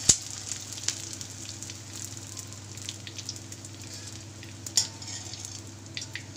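Gond (edible gum) sizzling and puffing up as it deep-fries in hot ghee in an aluminium kadhai, with a steady fizzing crackle. A metal slotted spoon clicks against the pan a few times, loudest right at the start.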